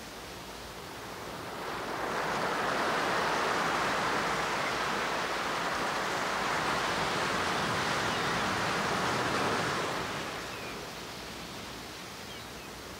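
Ocean surf from a new age nature-sound cassette: a wave washes in about two seconds in, holds, then ebbs away about ten seconds in, over a faint background hiss.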